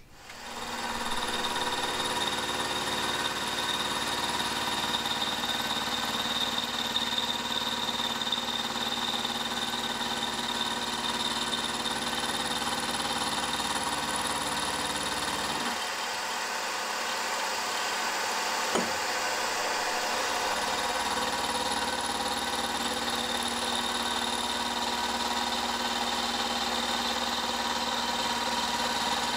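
Milling machine running steadily as an end mill takes a side cut along the steel connecting rod held in the vise: a constant motor and spindle whine with the noise of the cut.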